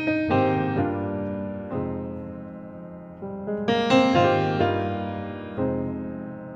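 Background piano music: slow chords struck and left to ring away, a new chord every second or so.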